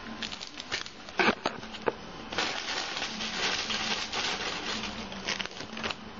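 Clear plastic bag around a laptop battery pack crinkling and rustling as it is handled. A couple of sharp clicks come at about one and two seconds in, then a dense crinkling lasts about three seconds.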